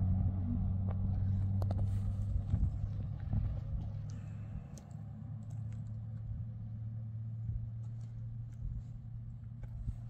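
A motor vehicle engine running with a steady low hum, which grows quieter about halfway through; a few faint clicks over it.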